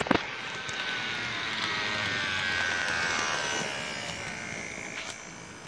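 Small electric motor and gears of an HO scale model locomotive whining as the train runs past on the track, growing louder and then fading away, with a couple of clicks. The locomotive has no sound unit, so this is the bare mechanism running.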